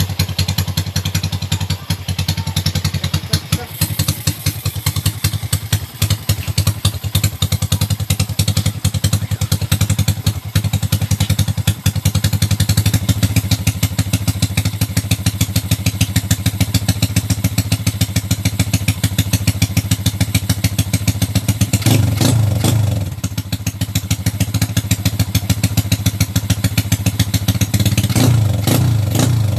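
A Honda XRM125's single-cylinder four-stroke engine idles loudly through an aftermarket JEC Speed racing exhaust pipe, with a steady, rapid train of exhaust pulses. The throttle is blipped twice: once about two-thirds of the way through and again near the end, with the revs rising and falling back to idle each time.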